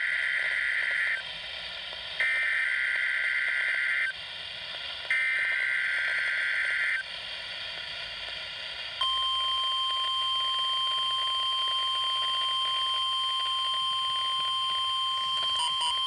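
NOAA Weather Radio alert signal through a Midland handheld weather radio's speaker. It opens with three buzzy bursts of the SAME digital header, each about two seconds long and about a second apart. About nine seconds in comes a steady single-pitched tone, the 1050 Hz warning alarm tone, marking a Required Weekly Test.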